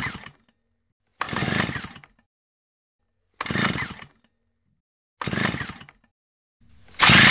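Short, harsh crashing bursts of noise, repeated about every two seconds, each starting suddenly and dying away into dead silence. Loud music comes in near the end.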